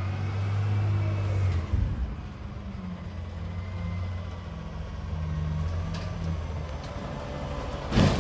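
Front-loader garbage truck's engine running as the truck drives closer, a steady low hum with a faint whine that drifts in pitch. A short, loud, sudden burst comes near the end.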